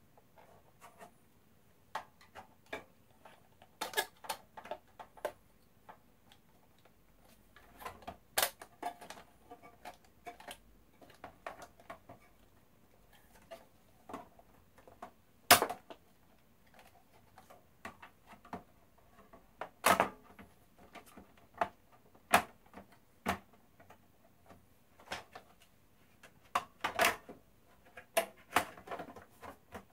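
Irregular clicks, taps and knocks of plastic and sheet-metal parts being handled as an Xbox One is put back together: the disc drive being seated in the console and the metal shield plate laid over it, with a few louder knocks midway.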